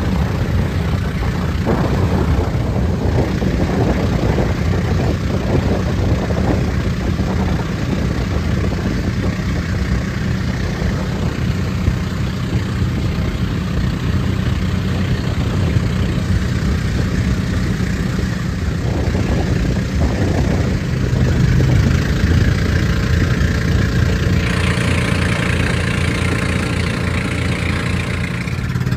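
Outrigger boat's engine running steadily under way, a constant low drone with the rush of water and wind. A brighter hiss joins about four seconds before the end.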